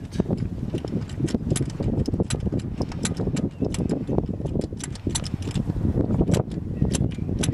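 Irregular metallic clicks and clinks, several a second, from hand tools working in a car's engine bay while a spark plug is unscrewed, over a low rumble.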